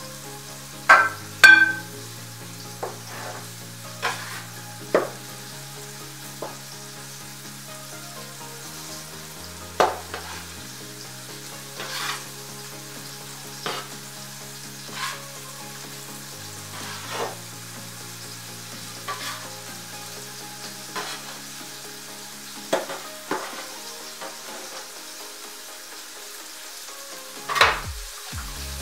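A dough scraper cutting through sourdough dough and knocking on the countertop: scattered sharp taps and scrapes, the loudest two about a second in and another near the end.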